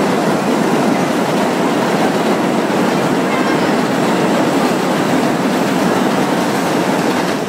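Loud, steady roar of city street noise with no distinct tones.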